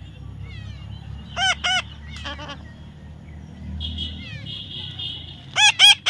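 Parrot squawking in short, harsh arched calls: a pair about a second and a half in, another just after, a buzzy chatter around four seconds, then three loud calls in quick succession at the end.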